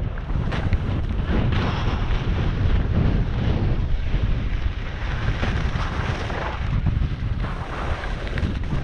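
Wind buffeting a skier's body-mounted camera microphone at speed, with skis hissing and scraping over packed, chopped-up snow, the scraping swelling and fading every second or two.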